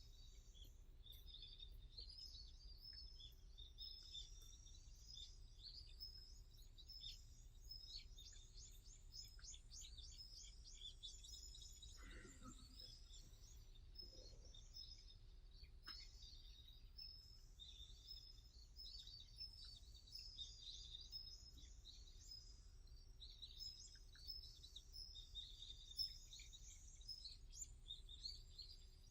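Small birds chirping and singing in a forest, many short overlapping calls at several pitches, heard faintly over a low steady background rumble.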